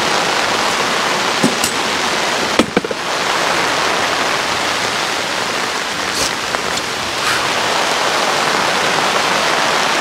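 Heavy rain falling steadily on the fabric canopy overhead, a dense unbroken hiss. A few sharp knocks come about 1.5 and 3 seconds in, from folding camp chairs being handled.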